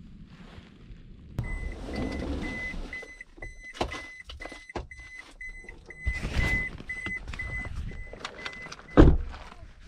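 A vehicle's warning chime beeping steadily, about four beeps a second, with clicks and knocks around it. The beeping stops just before a loud thump near the end.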